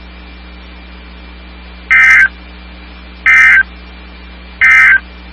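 NOAA Weather Radio SAME end-of-message data bursts: three short, buzzy digital warbles about a second and a half apart, marking the close of the weekly required test. Under them runs steady radio hiss and hum.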